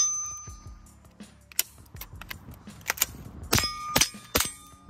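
A suppressed .22 Magnum AR-15 fires a string of about six semi-automatic shots at uneven spacing. Several shots are followed by a ringing clang of steel being hit, which hangs on briefly.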